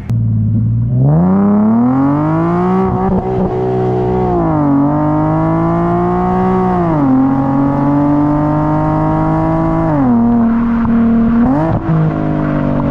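Infiniti G37 V6 with an ISR single-exit exhaust accelerating hard. The exhaust note climbs in pitch and drops at each upshift, three or four times.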